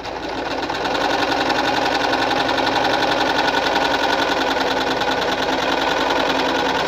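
Victoria Nuzstitch ZZ-570 sewing machine stitching a side of a buttonhole, a fast, even run of stitches. It starts up and comes to a steady speed within the first second.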